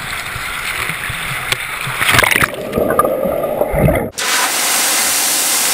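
Pool water splashing and sloshing around a camera held at the water's surface, with a few swelling washes. Just after four seconds it cuts off abruptly and gives way to a steady, even rushing noise.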